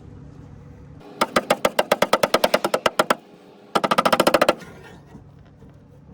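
A hammer tapping quickly on a steel body panel backed by a second, bigger hammer used as a dolly, knocking it into line with the wing. Two quick runs of light metallic taps, about ten a second: a longer run, then a shorter, faster one.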